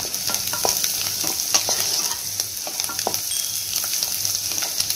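Oil sizzling in a frying pan while a wooden spatula stirs and mixes fried egg, onion and green chilli. Irregular scrapes and taps of the spatula against the pan run over a steady hiss.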